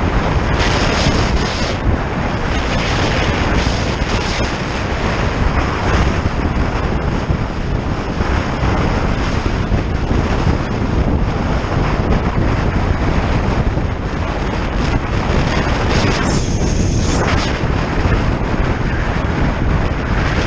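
Steady wind rushing and buffeting over the microphone of a moving bike-mounted camera, a dense, loud noise with no clear engine tone.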